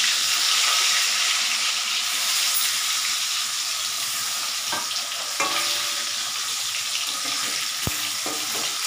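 Boiled potatoes sizzling as they shallow-fry in hot oil in a kadai. A few light knocks come as they are turned in the pan, with one sharp tap near the end.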